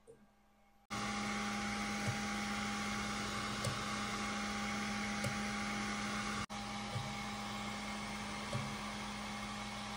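Sculpfun laser engraver running during rotary engraving of a polypropylene pipe: a steady fan and motor hum, starting abruptly about a second in, with faint ticks about every second and a half.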